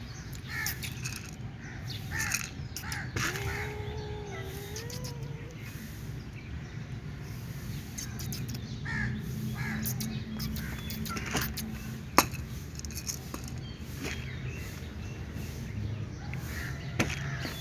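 Crows cawing now and then in short calls, with one long wavering call a few seconds in. A single sharp click about twelve seconds in is the loudest sound, over a steady low rumble.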